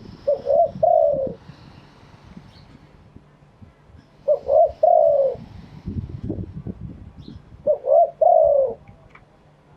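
Spotted dove cooing: three phrases about three and a half seconds apart, each two short notes followed by a longer falling coo.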